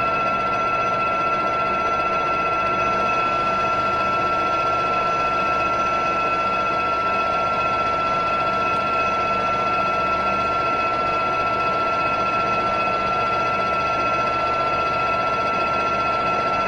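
Metal lathe running steadily while turning a washer, with a constant high whine from its drive.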